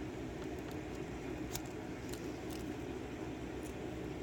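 Steady low background hum with a few faint, light clicks and scrapes of a knife working at sticky tape on a lock part.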